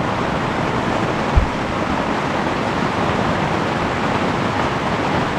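Heavy rain pelting down on a tent flysheet: a steady, dense hiss. A single brief low thump about a second and a half in.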